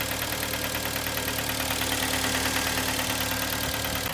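Kia Sportage's 2.0-litre G4KD four-cylinder engine idling just after a cold start, with a steady, rapid knock. The knock comes from scored cylinders with aluminium smeared onto the liners, which the mechanic takes to mean the engine needs a major overhaul.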